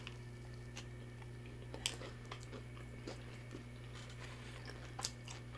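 A person chewing a bite of burger, faint, with a few small soft mouth clicks scattered through.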